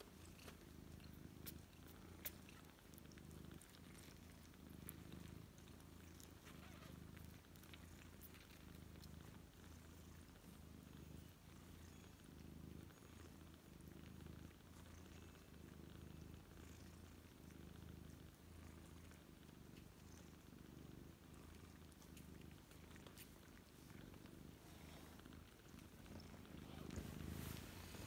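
Faint, steady purring from a mother cat nursing her ten-day-old Ragdoll kittens, with a few small clicks.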